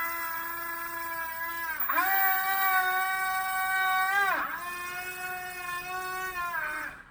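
Small coreless electric motors spinning propellers with a steady high whine. The pitch dips sharply and comes straight back up about every two and a half seconds, three times, as the throttle is briefly cut and reopened. The whine stops just before the end.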